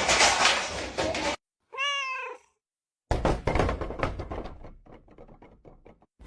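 A domestic cat gives one short meow that rises and falls in pitch, after a stretch of loud noise cuts off. Then comes a run of knocks and thuds that fade away.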